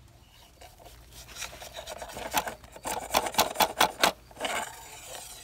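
Dry hay scraping and rustling against the metal hay probe and a plastic sample bag as the core sample is worked out of the probe into the bag. The scraping comes in irregular strokes that grow from about a second in and are loudest in a run of quick strokes in the middle.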